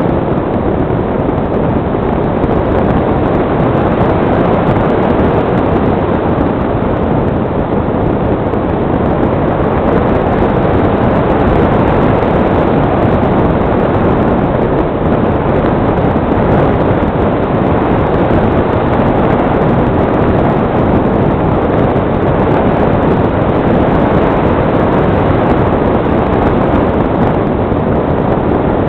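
Steady, loud rush of airflow over the microphone of a small camera mounted on a model glider in flight.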